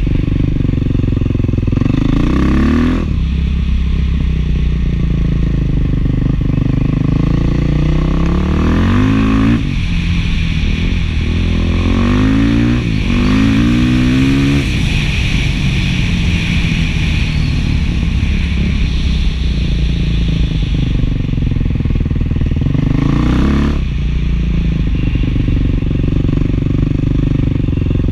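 Beta 500 dual-sport motorcycle's single-cylinder four-stroke engine running through an FMF 4.1 muffler, heard close up from the rider's position while riding. Engine speed climbs several times and drops back with each gear change.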